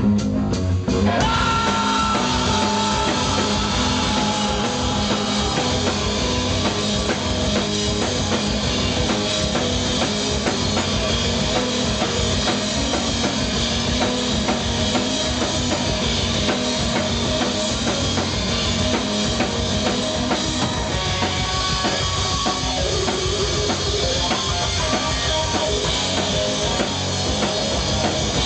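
Live rock band of electric guitar, bass guitar and drum kit playing loud and heavy. About a second in the full band comes in, with a long held note that slowly falls in pitch over the next few seconds.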